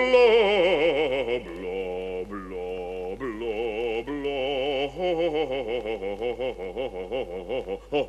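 A cartoon male singing voice sight-reading wordless opera-style notes with a wide vibrato. About five seconds in it turns into a fast pulsing warble, about four pulses a second.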